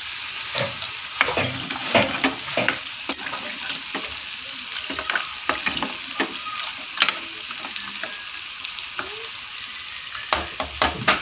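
Curry simmering and sizzling in an aluminium pressure cooker while a spoon stirs it, with a steady hiss and many short scrapes and knocks of the spoon against the pot, most of them near the end.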